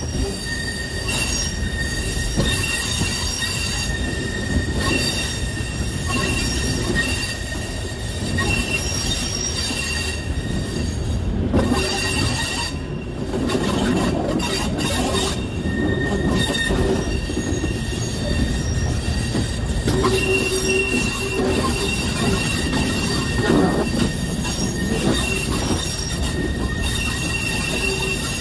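Passenger train carriage running along the track, heard from on board: a steady low rumble of the wheels, with thin, high squealing tones from the wheels that come and go.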